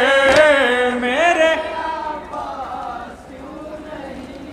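Male voices chanting a noha, drawing out the end of a line in a sliding melody that fades after about two seconds into faint humming voices. A single sharp hand slap, a matam chest-beat, comes about a third of a second in.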